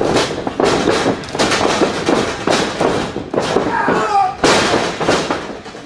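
Wrestlers' bodies slamming onto a wrestling ring's canvas in a string of sharp, loud thuds, with a shout about four seconds in.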